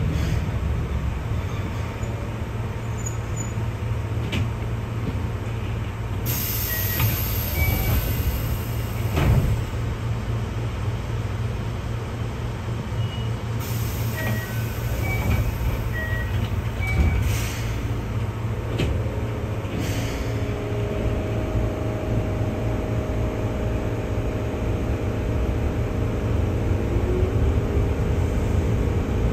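Keihan 600-series electric train car running: a steady low rumble of wheels on rail with a few sharp knocks. A faint motor hum comes in about two-thirds of the way through and rises in pitch near the end.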